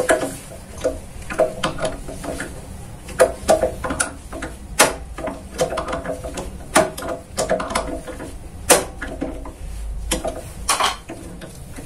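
Irregular metallic clicks and taps, a few with a short ring, as a twist drill bit is fitted and tightened into a drill press chuck.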